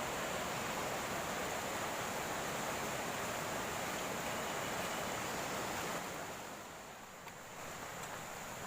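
Steady rushing of a fast-flowing upland river, easing somewhat about six seconds in.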